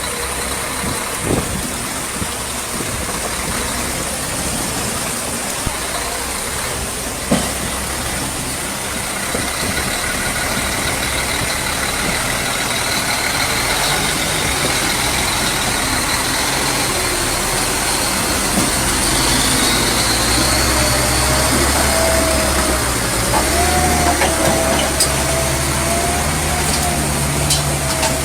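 Heavy truck engine running under load, its pitch wavering and rising in the last third, with a few short knocks.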